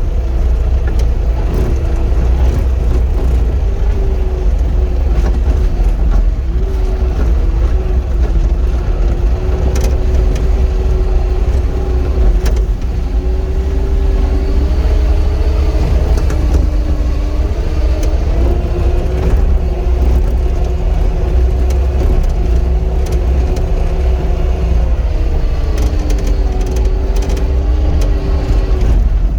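Cat 259 skid steer's diesel engine running under load, heard from the cab, with a steady deep rumble and a whine whose pitch steps up and down as the machine works.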